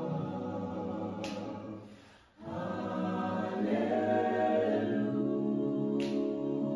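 Background music: a choir singing slow, held chords. The sound fades almost to nothing about two seconds in, then the choir comes back at full level.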